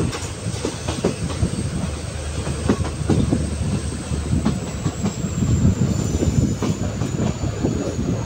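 Express train coaches running along the track: a steady low rumble of wheels on rail, with irregular clickety-clack clicks as the wheels pass over rail joints.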